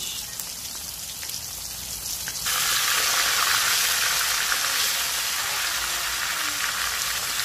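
Floured salmon pieces frying in hot oil in a wok, a steady sizzle that turns suddenly louder and hissier about two and a half seconds in.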